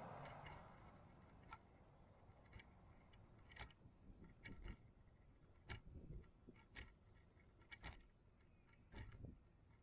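Faint irregular clicks and ticks over a low rumble, from a small vehicle rolling along a concrete sidewalk. A passing car's road noise fades out in the first second.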